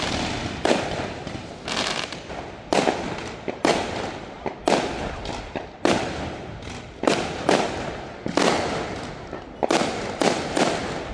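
Aerial fireworks going off: about fifteen sharp bangs at irregular intervals, roughly one or two a second, each trailing off after the blast.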